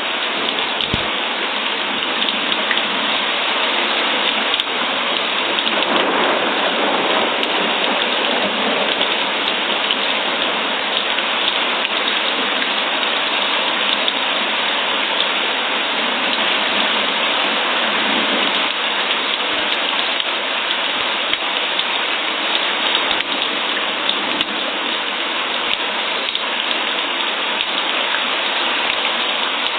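Steady rain falling, a continuous even hiss of drops on surfaces that swells slightly a few times.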